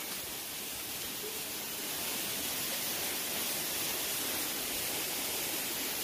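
Steady hiss of running water from a shallow stream, a little louder from about two seconds in.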